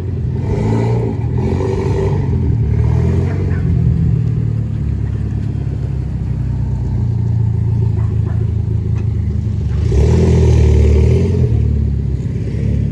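Car engine and exhaust running with a steady low drone, swelling louder as it accelerates about ten seconds in.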